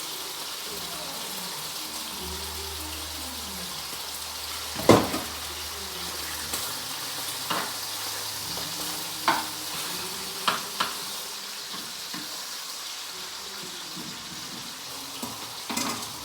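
Bacon sizzling as it fries in a pan, a steady hiss, with a few sharp knocks of a utensil against the pan, the loudest about five seconds in.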